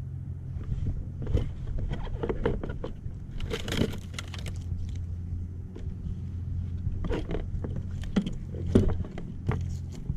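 Irregular clicks, knocks and rattles in clusters, over a steady low hum.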